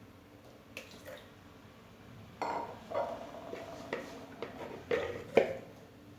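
Cookware being handled: a series of short metal clinks and knocks from a pot and utensils, with the loudest strike about five seconds in.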